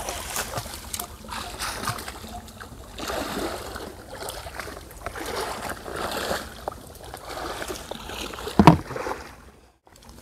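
Shallow field water splashing and sloshing in irregular bursts as people wade and grope for fish, with one sharp knock near the end.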